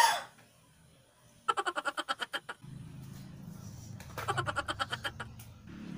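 A short, loud vocal cry at the start, then two runs of quick, broken vocal sounds, over a low steady hum that comes in about halfway.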